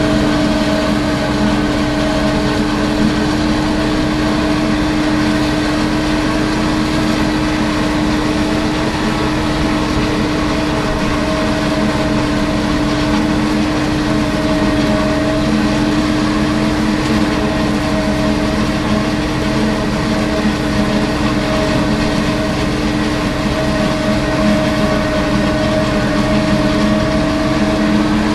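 Tümosan 9115 tractor's diesel engine working under load, driving a Çelmak two-row silage harvester that chops maize and blows it into a trailer: a steady, unbroken machine drone with a constant hum.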